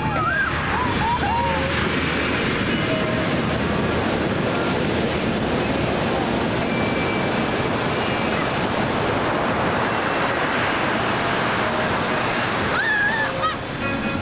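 Ocean surf: waves breaking and washing up the shore in a steady rush.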